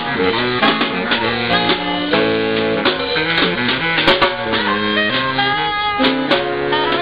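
Small jazz band of saxophones playing a tune together in several parts, with a snare drum beating time.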